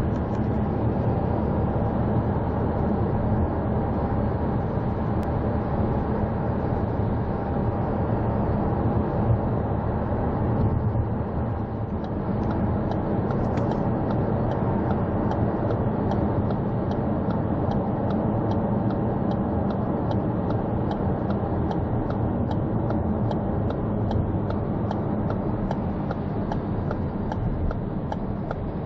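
Tyre and road noise inside a car cabin at freeway speed. From about halfway through, the turn-signal indicator ticks steadily about twice a second.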